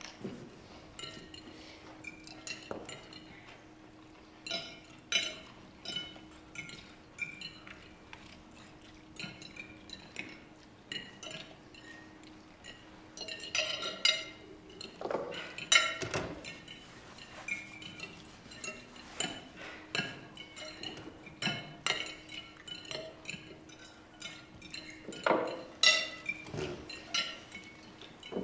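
Cutlery clinking against plates and glassware at a dinner table, in many small, irregular strikes, with a louder flurry around the middle and another near the end. A faint steady hum lies underneath.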